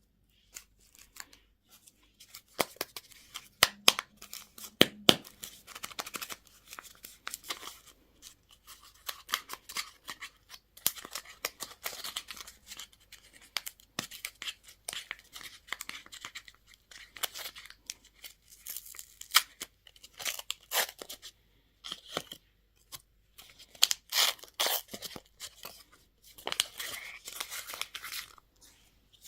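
Plastic candy and toy packaging being handled and torn open by hand: crinkling and rustling broken by many sharp clicks and snaps.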